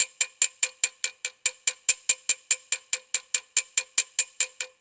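A small dent hammer tapping lightly and quickly on a collapsed brass trombone slide tube, about four or five even strikes a second, each with a short metallic ring. The light blows are laying the raised metal back down and bringing up the low spots of the dent.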